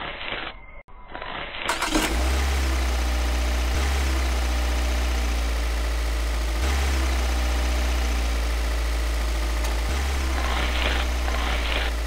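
An engine starts about two seconds in and then runs steadily with a deep, low hum, its sound broken by sharp seams every three seconds or so like a looped engine recording.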